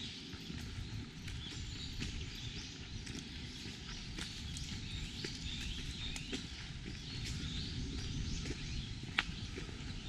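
Small birds chirping and calling over one another, with footsteps on a path and low rumble from the walking, and a sharp click about nine seconds in.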